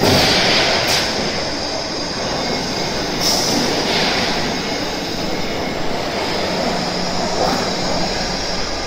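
Corrugated roofing-sheet roll forming machine running, the steel strip feeding off the decoiler through the forming rollers: a steady mechanical hum and rattle with a few brief high squeals.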